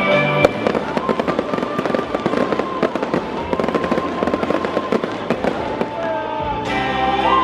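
Stadium victory fireworks going off in a dense, rapid crackling barrage, with music underneath. Near the end the crackling thins out and the music comes back to the front.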